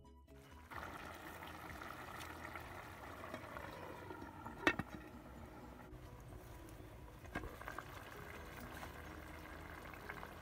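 Pot of fish, vegetables and broth simmering on the fire, bubbling steadily. A sharp knock about halfway through is the loudest sound, with a smaller one later.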